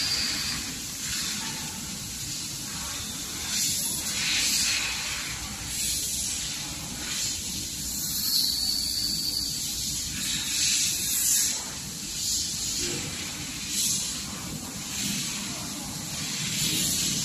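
Gas hissing from a handheld fiber laser head, swelling and fading in uneven bursts every second or two over a steady low workshop hum.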